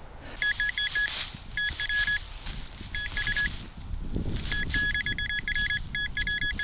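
Rutus Alter 71 metal detector giving quick runs of short high beeps in five clusters as it is swept over the ground, against the sound of footsteps.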